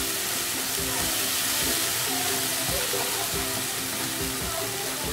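Chopped onion, ginger-garlic paste and green chillies sizzling steadily in oil in a nonstick wok, with a splash of water in the masala, as a wooden spatula stirs it. Quiet background music plays underneath.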